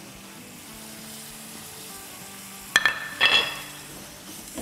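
Nuts being stirred into sweetened vermicelli sizzling gently in a frying pan on a low flame, under faint background music. About three seconds in come two ringing clinks of kitchenware, half a second apart, the loudest sounds here.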